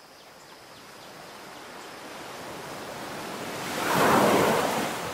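A rushing hiss with no distinct tone builds slowly, swells loudest about four seconds in, then fades.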